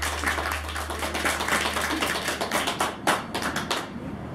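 Small audience clapping by hand. The applause thins out, ends with a few loud last claps, and stops about four seconds in.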